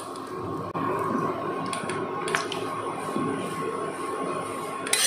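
Frankie roti frying on a hot nonstick tawa: a steady sizzle with a thin steady tone under it, and a few light clicks of a metal spatula pressing the bread.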